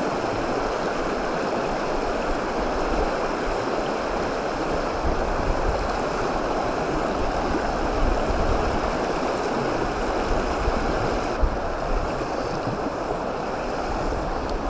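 Shallow stony stream rushing steadily over a riffle. Gusts of wind rumble on the microphone, more strongly near the end.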